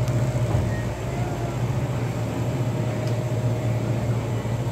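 Steady low hum with a faint, steady higher tone above it.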